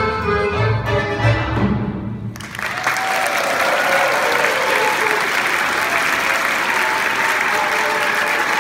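Violin, accordion and double bass play the final notes of a Gypsy song medley, stopping abruptly about two seconds in. Audience applause starts half a second later and stays steady.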